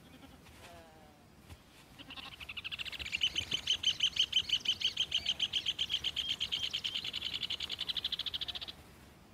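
Red ovenbird (rufous hornero) song: a long, fast run of loud, evenly repeated ringing notes. It starts about two seconds in and stops shortly before the end.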